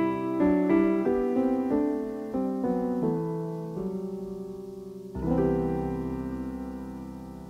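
Background piano music: a gentle melody of single notes, then a new chord about five seconds in that rings on and slowly fades.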